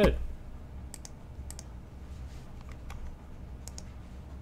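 Scattered clicks of a computer mouse, a few of them in quick pairs, over a low steady hum.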